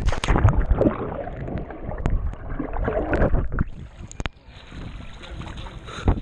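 Pool water splashing and sloshing close to the water surface as a person wades in, with many sharp splashes at first, settling after about four seconds into softer, steadier lapping.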